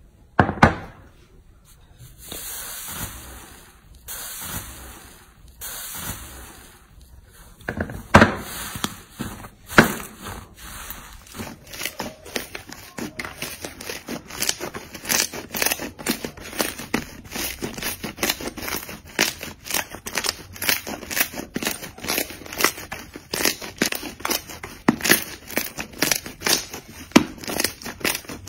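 Hands squishing and kneading a large mass of soft pink and yellow slime, which crackles and pops. It starts as a few slow squishes with sharp pops, then after about ten seconds becomes a dense, fast crackling as the slime is worked steadily.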